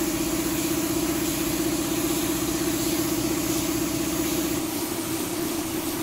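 Compressed-air paint spray gun hissing with its air compressor running steadily while a coating goes onto a turned wooden vase. There is a strong even hum under a hiss, and the hum changes slightly about four and a half seconds in.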